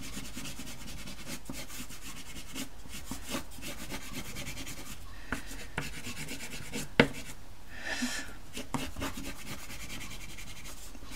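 Rembrandt soft pastel stick rubbing and scratching across textured pastel paper in many short strokes, laying colour into the foreground, with one sharp tap about seven seconds in.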